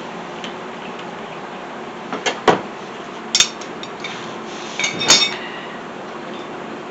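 Metal hand tools and car parts clinking and knocking against each other: a few sharp metallic clinks about two seconds in, another about three and a half seconds in, and a cluster near five seconds with a brief ring, over a steady shop hiss.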